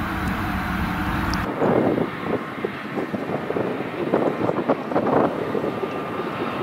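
Ropa Tiger 6 sugar beet harvester running as it drives along the field, heard through gusty wind buffeting the microphone. It begins after a steady machine hum that cuts off suddenly about a second and a half in.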